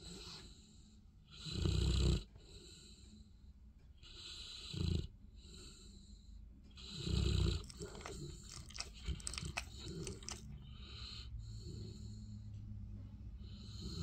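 Bernese Mountain Dog snoring as it falls asleep: three loud snores roughly two and a half seconds apart. These are followed by a few seconds of clicky mouth and lip smacking, then softer, regular snoring breaths.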